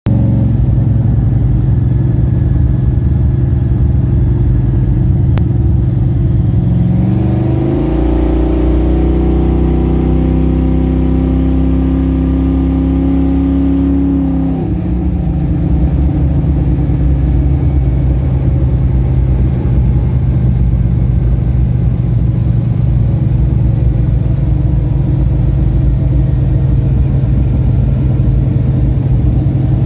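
Small-block Chevy V8 of a pro street Camaro heard from inside the cabin, running at a steady cruise. About seven seconds in the revs climb as it accelerates and hold higher, then drop back sharply about fourteen and a half seconds in to a steady cruise again.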